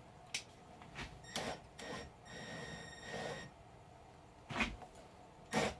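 Light clicks and knocks of a piece of metal stock being set into aluminium soft jaws in a mini mill's vise, with a sharper knock near the end. A faint steady whine sounds for about a second in the middle.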